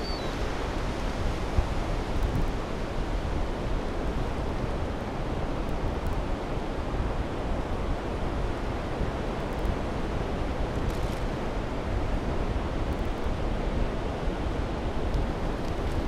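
Steady rush of ocean surf breaking on a beach, with wind rumbling on the microphone.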